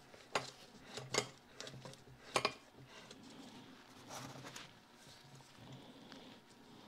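Small metal parts handled by hand during governor reassembly: a few sharp clicks and taps, the loudest about two and a half seconds in, then a short rustle about four seconds in, over a faint low hum.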